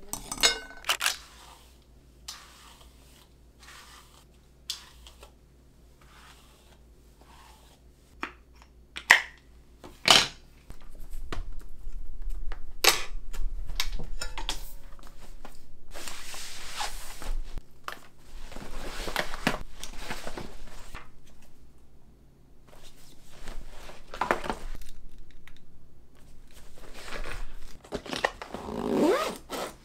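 Packaging being handled: a few sharp clicks and taps, then repeated stretches of tearing and crinkling.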